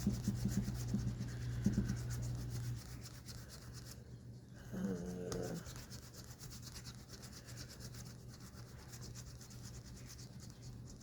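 Scratch-off lottery ticket being scraped, with fast, repeated scraping strokes that go quieter after about three seconds. A brief pitched sound, like a short voice, comes about five seconds in.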